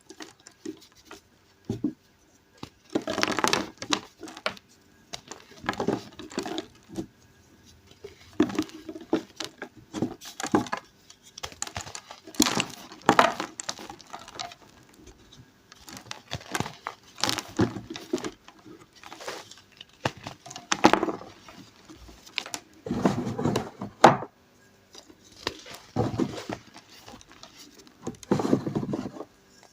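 Pink gym chalk reforms, blocks of re-pressed chalk powder, being crushed and crumbled by hand: irregular bursts of crisp crunching and crackling, each a second or two long, with short pauses between.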